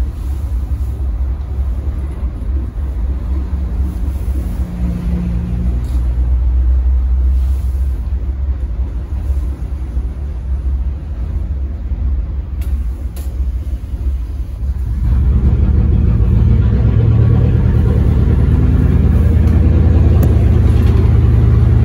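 LiAZ-677MB city bus's engine running steadily, then louder and fuller from about fifteen seconds in as the revs rise.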